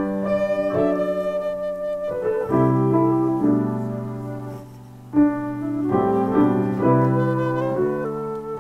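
Piano music: chords struck and left to ring, with a new chord coming in loudly about five seconds in.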